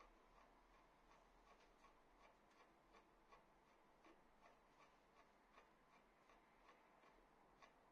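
Faint quick ticking, about three a second, as thread is pulled taut and wound around the nock of a wooden arrow shaft; it stops near the end.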